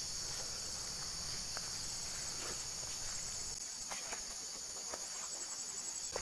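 Steady high-pitched insect chorus, with faint footsteps on a dirt track.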